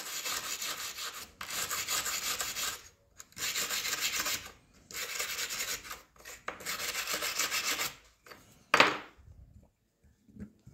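Hand wire brush scrubbing old gasket residue off a metal master cylinder lid, in rapid back-and-forth strokes. It goes in several spells of a second or two with short breaks between, and stops about eight seconds in.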